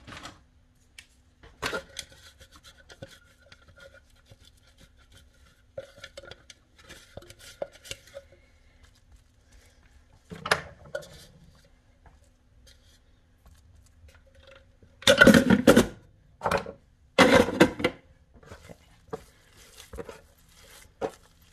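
Kitchen handling noises: a silicone spatula and hands working a lump of seitan dough on a wooden cutting board, scattered clicks and knocks with two louder clusters of knocking about fifteen and seventeen seconds in.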